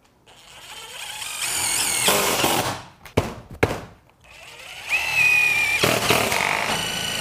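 Cordless impact driver driving screws through a metal valley flashing pan. There are two runs of a few seconds each, the first growing louder as it goes, with two sharp clicks between them.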